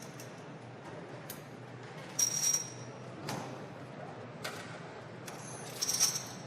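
Casino floor ambience: a steady background hubbub with scattered small clicks, and two bright clinks, each with a brief high ringing tone, about two seconds in and again near the end.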